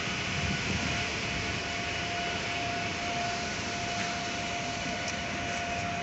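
Steady mechanical drone of engines and machinery, with one constant mid-pitched hum running through it and no change in level.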